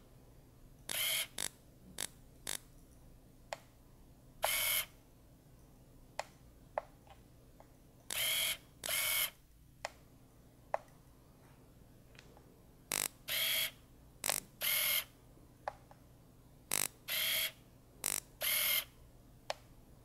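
Canon digital SLR camera shutter firing one shot at a time at irregular intervals, some shots in quick pairs, each a short mechanical clack. Fainter single sharp clicks fall between them.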